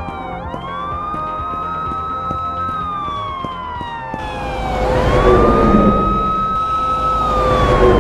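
Police car siren wailing, each wail rising quickly and then falling slowly over about four seconds, twice. From about halfway in, a rushing car noise swells and grows louder along with it, over steady background music.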